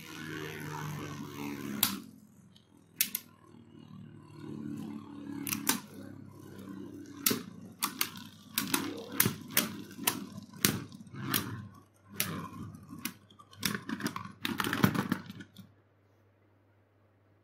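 Two Beyblade tops, a Beyblade Burst top on a Reboot driver and a Metal Fight top on a Final Drive, whirring as they spin on a plastic stadium floor and clashing with sharp clacks. There are a few scattered clacks at first, then rapid repeated clashes, and near the end the spinning and clashing stop suddenly as both tops come to rest.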